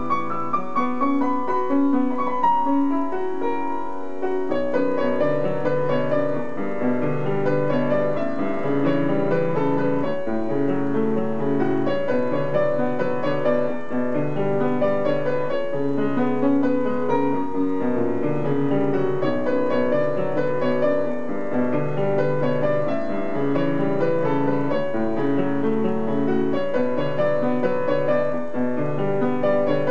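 Upright piano played solo: a slow ballad with chords and melody over steady, repeating bass notes.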